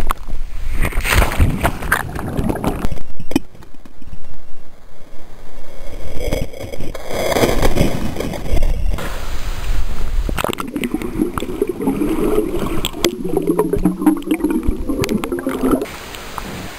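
Water gurgling and sloshing around a camera microphone carried underwater, muffled, with many sharp knocks and rumbles. Near the end it cuts off to a quieter, steady outdoor background.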